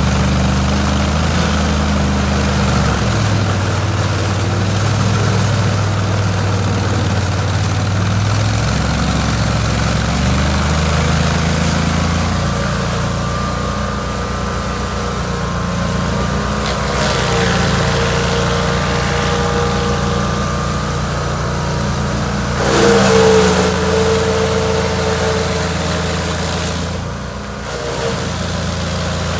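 Chainsaw engine running steadily, its speed shifting up and down, with a brief louder surge about three-quarters of the way through and a short drop near the end.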